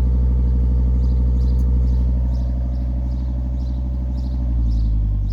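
Volvo S60's five-cylinder engine running steadily at idle, its low note shifting slightly near the end. A faint light tick repeats about twice a second.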